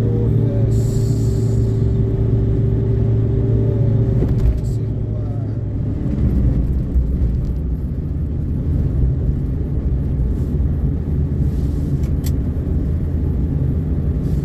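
Inside the cabin of a Suzuki Karimun Kotak, its small 1.0-litre four-cylinder engine runs under load while climbing a hill, with the air conditioning on. The steady engine hum changes about four and a half seconds in, its clear tone giving way to a lower, rougher rumble.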